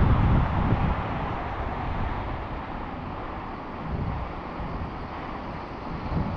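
Gusty wind buffeting the microphone on an exposed ridge, a low rumbling noise that is strongest at the start, eases about half a second in and swells again briefly a few times.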